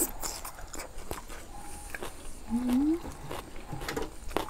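Close-up chewing and small mouth clicks of a person eating papaya salad and fresh greens, with one short rising tone about two and a half seconds in.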